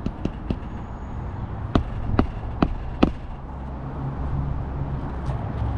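Hammer driving a roofing nail into a shingle: a few light tapping strikes, then four sharp blows about half a second apart.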